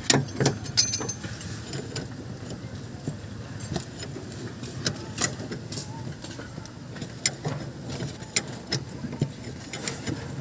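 Irregular metallic clicks and clinks of hand tools and steel parts being fitted on a van's front suspension, over a low steady hum.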